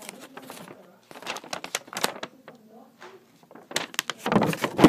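Bursts of crackling and clicking from a package being handled and opened, loudest near the end.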